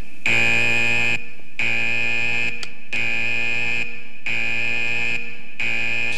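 Electronic buzzer sounding in a steady on-off pattern, about a second on and a short gap off, six times in a row.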